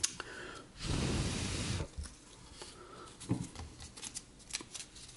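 Faint handling of a cardboard model-kit pipe piece in the hands: scattered light taps and clicks. About a second in comes a breath-like rush of air lasting about a second, the loudest sound here.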